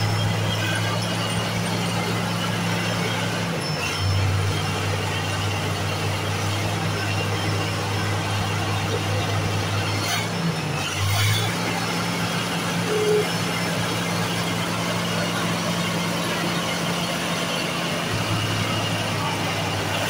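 Komatsu D65P bulldozer's diesel engine running at a steady low hum, its tone shifting briefly about four and eleven seconds in.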